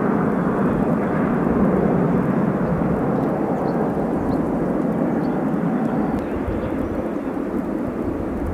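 Airbus A380's four turbofan engines heard from the ground as the airliner banks and flies past: a loud, steady, deep rumbling jet noise that eases a little near the end as it climbs away.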